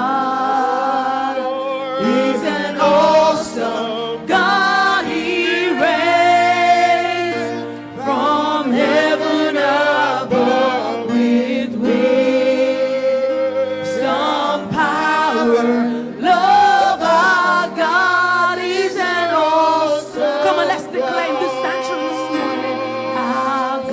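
Church worship team singing a slow gospel worship song, several voices together with long held and gliding notes over a steady backing.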